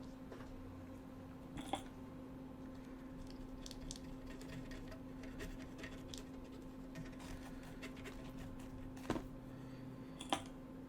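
Steady hum of a fume extractor fan, with faint handling ticks and three sharper clicks of small tools on the workbench: about two seconds in, near nine seconds, and just before the end.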